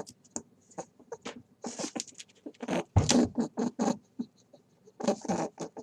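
A small animal chattering: short high squeaks and clicks in quick, irregular runs, with brief pauses between them.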